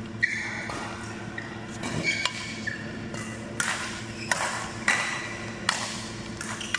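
Badminton rackets striking a shuttlecock in a fast doubles rally: about seven sharp hits, spaced roughly half a second to a second apart, with short high squeaks between them.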